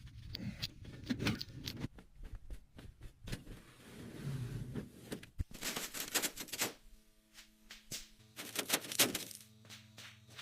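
Rapid, irregular knocking and clattering, with a steady hum underneath from about seven seconds in.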